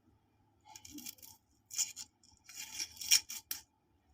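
A raw white onion rubbed by hand across a grater: a few short rasping strokes, then a quicker run of strokes near the end.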